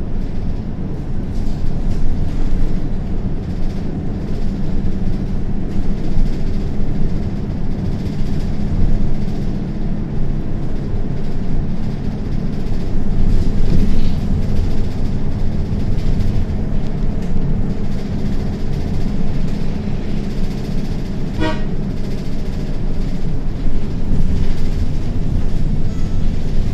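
Samco City H76 CNG city bus running on the road, a steady low engine rumble with road noise. A short horn toot sounds about twenty seconds in.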